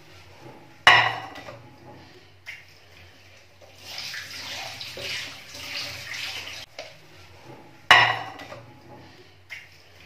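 Dishes being washed by hand in a stainless steel sink: a sponge scrubbing pots and a glass lid, water splashing, and two sharp clatters of cookware, one about a second in and one near the end.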